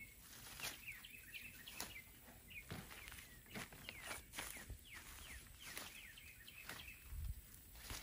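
Faint snapping and rustling of purple hull pea pods being picked from the plants, with a small bird chirping over and over in short falling notes. A low rumble comes in near the end.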